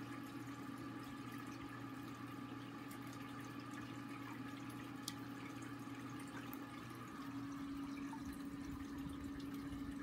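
Steady low electrical hum with a faint hiss from a running room appliance. The hum grows stronger about seven seconds in, and there is a single faint click about five seconds in.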